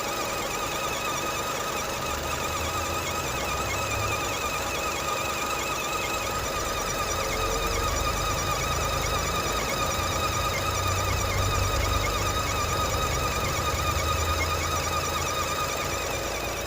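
Nissan Serena's engine running with a steady, warbling whistle and squeal from a pulley in the accessory belt drive; it shows up once the engine is warm and under revs, and a new idler pulley bearing has not cured it. The low engine hum swells a few seconds in and again past the middle.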